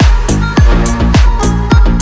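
Bass-boosted electronic dance music in a bass house style: a heavy, deep kick drum with a falling-pitch thump a little under twice a second, hi-hats between the kicks, and a sustained synth bass underneath.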